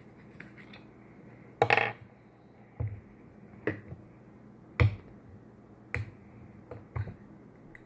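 Elmer's glue bottle being handled at a bowl: six short knocks, about one a second, the first the loudest.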